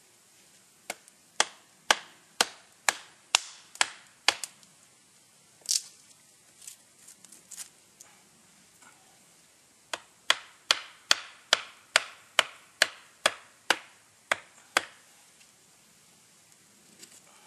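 Small hickory-handled hardware-store axe chopping wood with quick, sharp strokes, about two a second. About eight strokes come first, then after a pause about a dozen more.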